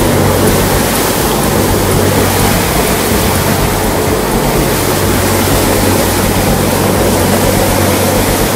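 Fishing boat under way through choppy seas: a steady low engine drone beneath a loud, even wash of wind and water noise.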